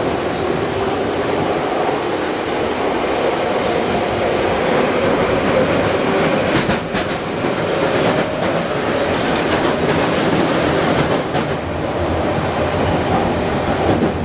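Tokyu 8500 series electric train running at speed, heard inside a motor car: a steady rumble of wheels on rail, with a few clicks over rail joints in the middle.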